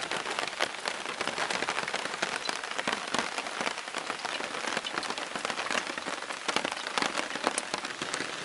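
Steady drizzle on a nylon hammock tarp overhead, heard as a dense, even run of small drop taps.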